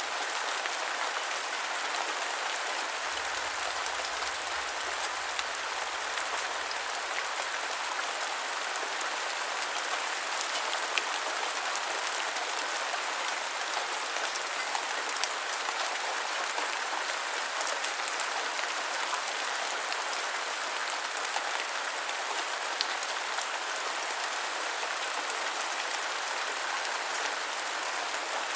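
Steady rain falling: an even hiss of rain with many small individual drop ticks scattered through it.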